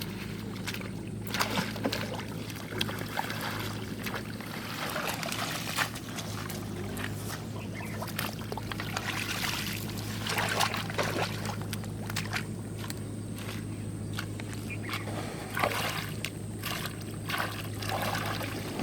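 Water sloshing and splashing in irregular bursts as a fishing net trap is handled in a canal, over a steady low hum.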